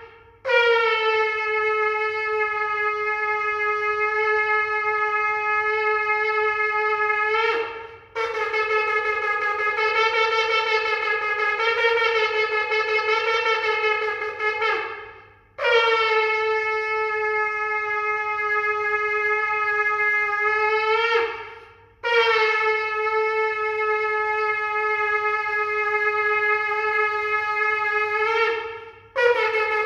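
A shofar blown in long, steady blasts, four of them each lasting several seconds, with a short break between each and the pitch dropping as each blast dies away. Another blast begins near the end.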